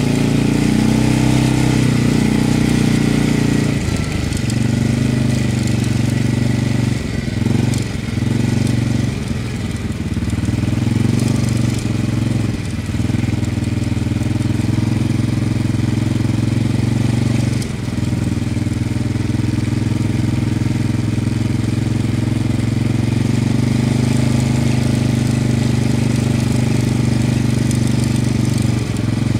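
Quad bike (ATV) engine running steadily at low speed, heard up close from the rider's seat; the engine note dips briefly a few times.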